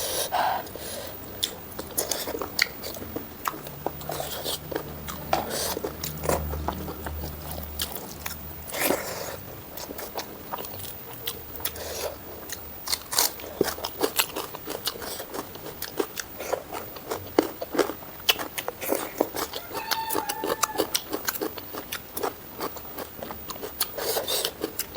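Close-miked eating: repeated crunchy bites and chewing, heard as a dense run of small, irregular mouth clicks.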